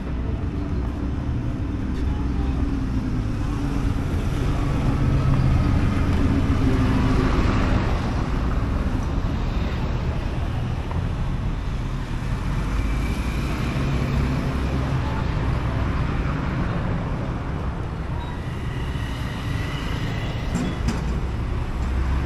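Street traffic: cars and motorbikes passing on a paved town street, a steady low rumble that swells a little in loudness from about four to eight seconds in.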